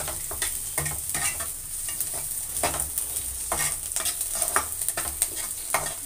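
Slotted metal spatula scraping and stirring chopped onions and green chillies in an aluminium kadai, with the oil sizzling steadily as they fry. The scrapes come irregularly, about one or two a second.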